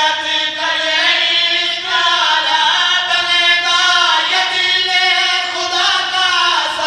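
A man's voice chanting a qaseeda, an Urdu devotional poem, into a microphone in long held melodic notes that bend slowly in pitch, with short breaks between phrases.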